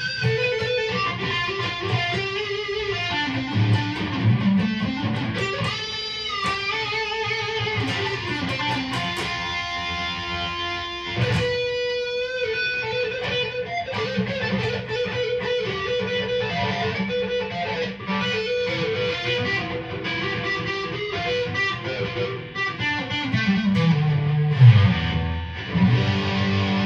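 Mattrixx Telecaster-style electric guitar with humbucker pickups, played through an amplifier: a single-note lead melody with held notes, a bent note rising and falling about six seconds in, and a slide down into the low register near the end.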